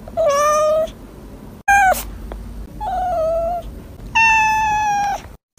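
A cat meowing four times, with short pauses between the calls. The third is short, and the last is the longest and highest.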